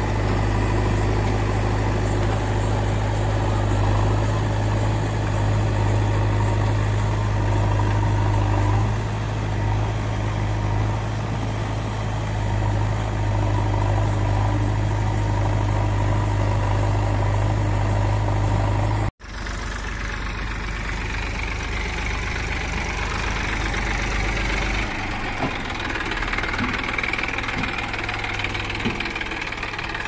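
Diesel engines of a JCB backhoe loader and a tractor running steadily with a deep, even hum. About two-thirds of the way through the sound cuts abruptly to a lighter engine sound, a Massey Ferguson 241 DI tractor's diesel running.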